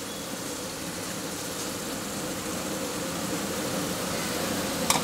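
Fish gravy in a thin kadai over a high gas flame, sizzling and hissing as coconut milk is poured in, with a steady hum beneath that grows slightly louder; a short knock near the end.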